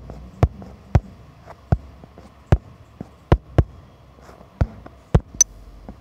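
A series of sharp, short clicks, about nine, coming at uneven intervals over a faint low background hum.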